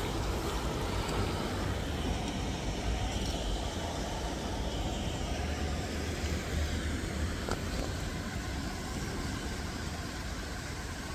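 Steady outdoor background noise: an even hiss over a low, wavering rumble.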